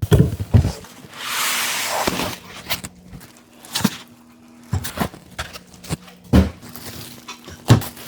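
Unboxing of a large PC case: cardboard box and packing handled, with a few knocks near the start, a long scraping rustle about a second in, then scattered thumps and taps.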